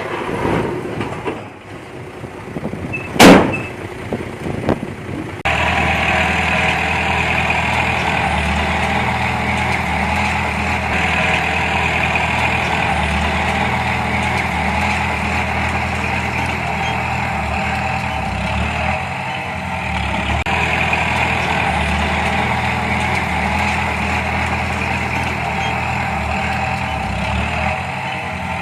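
Diesel engine of heavy earthmoving machinery running steadily, with a single loud bang about three seconds in. The sound changes abruptly about five seconds in.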